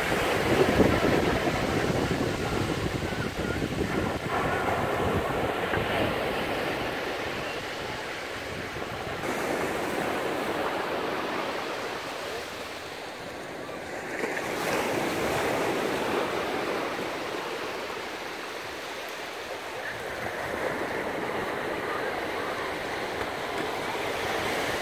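Small sea waves breaking and washing up a flat sandy beach, the surf surging and easing every four to six seconds.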